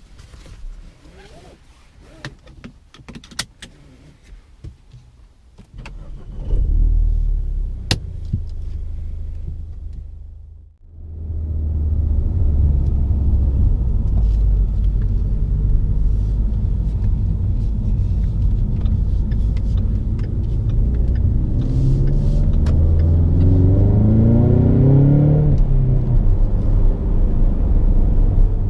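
Ford Mustang 2.3 L EcoBoost turbocharged four-cylinder engine: after a few seconds of small clicks and rattles it starts with a loud flare about six seconds in and settles. It drops away briefly around eleven seconds, then runs steadily, with the revs climbing for a few seconds near the end and falling back.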